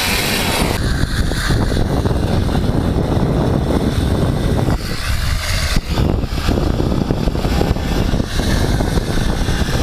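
Snowmobile engine running steadily while riding, with brief dips in level about five and six seconds in.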